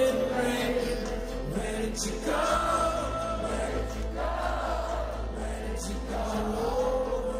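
A rock band playing live in a concert hall, with sung vocal phrases about a second long and short gaps between them, over a steady low drone.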